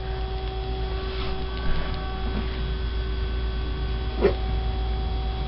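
Steady electrical hum, with one brief, faint pitched call about four seconds in.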